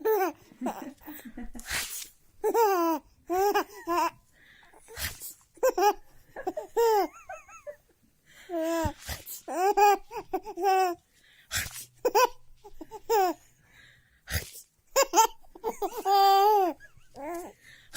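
A three-month-old baby laughing in repeated high-pitched bursts. Short sharp bursts of noise between the laughs, an adult's sneezes, set her off again.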